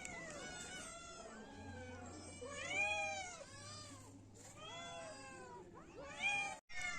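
Kittens meowing over and over in short, high, arching calls, several at once at different pitches, with one louder meow about three seconds in. The sound breaks off suddenly for a moment near the end.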